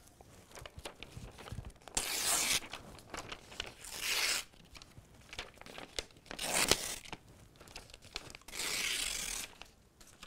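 A sheet of paper torn by hand from a spiral-bound sketchbook: four separate rips about two seconds apart, the last one the longest, with soft paper crinkling between.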